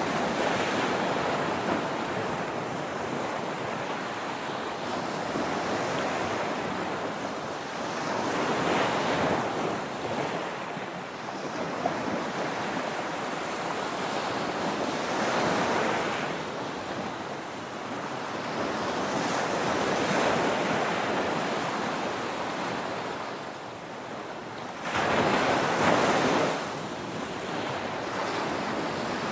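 Small ocean waves breaking and washing up a sandy beach, a steady surf hiss that swells and fades every few seconds. The largest wave breaks a few seconds before the end.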